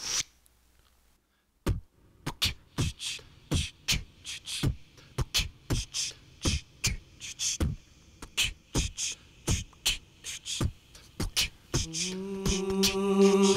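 Song intro: a dry percussive rhythm of short clicks and taps, about three strikes a second, then sustained pitched chords come in about twelve seconds in and swell as the music starts.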